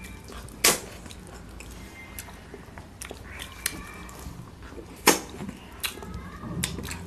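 People eating with their hands, chewing with a few wet mouth smacks; two sharp smacks stand out, about a second in and again around five seconds in, with lighter clicks between.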